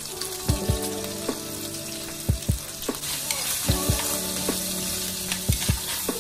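Diced bacon, garlic and freshly added sliced mushrooms sizzling in olive oil in a frying pan, with a steady hiss and a dozen or so sharp knocks of a utensil against the pan as it is stirred.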